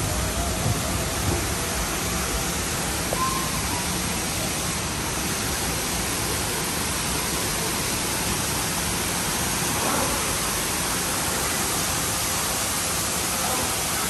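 Steady rushing noise of falling water, even and unbroken.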